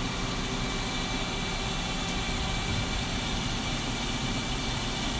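Okuma Impact LU-15M CNC lathe running with a steady drone and hiss, with a few faint steady tones in it.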